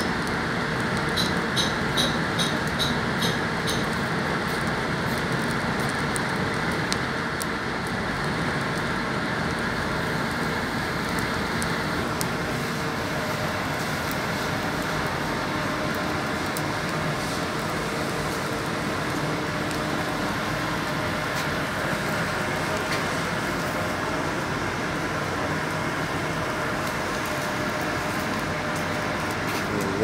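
Steady roar of a working solid-fuel steam boiler house: fire burning in the open firebox over a continuous machinery hum. A quick run of faint high pips sounds during the first few seconds.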